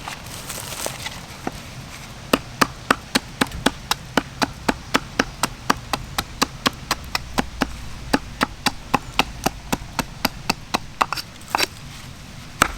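Rapid, steady series of sharp strikes, about three or four a second, as a tool hits wood; the blows start a little over two seconds in and stop near the end.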